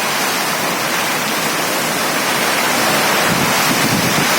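Heavy rain pouring down in a steady, dense hiss, with a brief low rumble a little past three seconds in.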